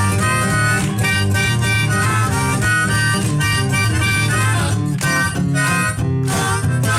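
Live band music in an instrumental passage without vocals, with a held-note lead over guitar and a steady bass. It is played back from an FM radio broadcast recorded onto normal-position cassette tape with Dolby B.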